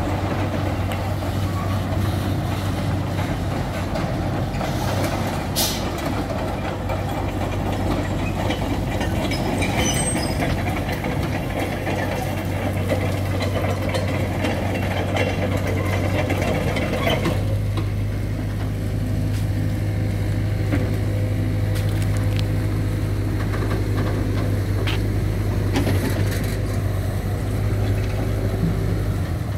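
Heavy diesel engines of a low-bed truck and an excavator running, with a brief hiss about five seconds in. A rougher, noisier layer stops about seventeen seconds in, leaving a steady low engine hum.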